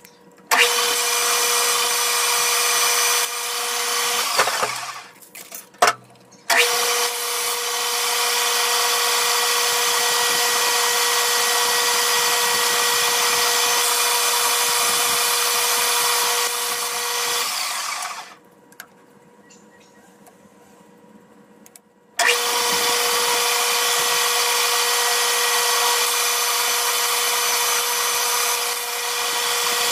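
Metal lathe running as it turns a 6061 aluminum bar, a steady motor-and-gear hum with a high whine. It stops for about two seconds around four seconds in, with a couple of clicks, and again for about four seconds from eighteen seconds in, then starts up again.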